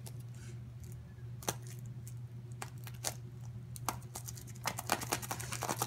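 Small cardboard mystery-figure box being pried and torn open by hand: scattered clicks and small rips, coming faster and denser near the end.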